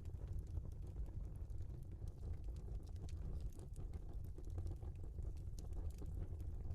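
Log fire burning in a fireplace: a steady low rumble of flames with many small, irregular crackles and pops from the burning wood.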